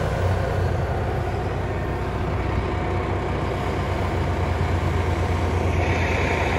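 Chevrolet Silverado HD's Duramax V8 turbo-diesel running steadily under throttle as the truck spins donuts, its rear tyres churning through snow. About six seconds in, a brighter hiss joins in.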